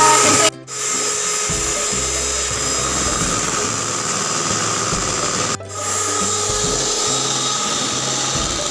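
Electric hand mixer running steadily with its beaters in a bowl of mixture, a constant motor whir. The sound cuts out sharply for a moment twice, about half a second in and again after five and a half seconds.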